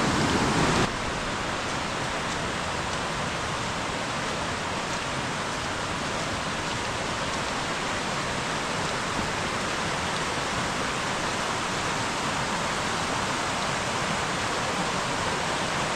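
Fast-flowing river in full spate: a steady, dense rush of white water, which drops slightly in level about a second in and then holds even.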